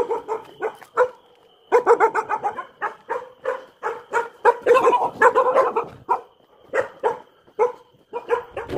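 Dogs barking repeatedly in quick volleys, with short pauses about a second in and around six seconds in.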